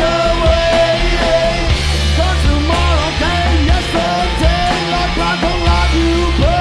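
Garage rock band playing loud, with drums, bass and a lead line that bends up and down in pitch, and no words sung.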